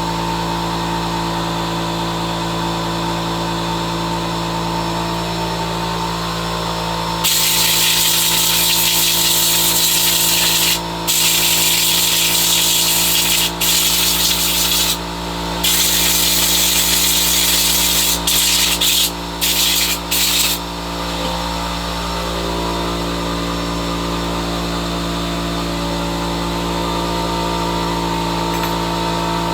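Air compressor running steadily, with a loud hiss of compressed air from a blow gun starting about seven seconds in and stopping about twenty-one seconds in. The hiss stops and starts again several times, in short breaks, toward the end.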